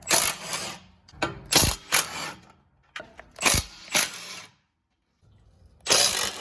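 Ratchet wrench clicking in several short spells as old exhaust parts are unbolted from underneath a car, with brief pauses between spells.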